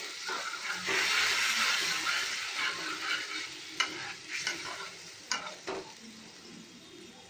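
A little water sizzling in a hot pan as a spatula stirs and scrapes through it, loosening milk stuck to the pan. The sizzle fades toward the end, with a few sharp scrapes or knocks of the spatula.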